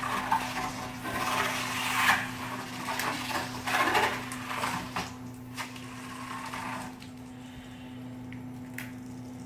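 Velcro tape being pulled through an ultrasonic slitter's head and wound onto a spool by hand: a rough scraping, rustling noise in uneven surges that eases about seven seconds in. A steady low hum runs underneath.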